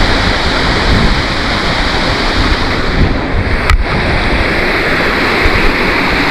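Small waterfall pouring into a pond: a loud, steady rush of water, with one short sharp click a little past the middle.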